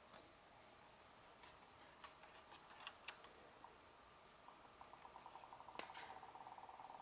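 A few faint clicks, then about halfway through the 140 mm cooling fan of a Cooler Master Notepal ErgoStand II laptop stand sets up a rapid, even ticking rattle that becomes steady: the stand's fan noise fault.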